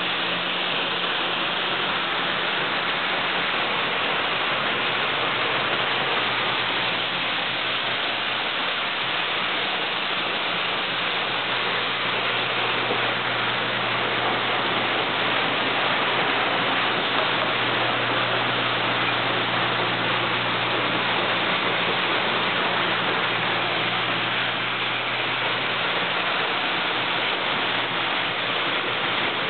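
Beans pouring and rattling through a 1925 Meyers elevator as a steady, dense rushing hiss. Underneath is the steady low hum of the elevator's 3 hp Masters electric motor.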